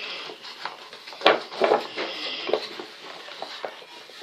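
Fluffy slime of glue and shaving cream being stirred in a bowl: wet mixing and scraping, with a few short knocks against the bowl, the loudest about a second in.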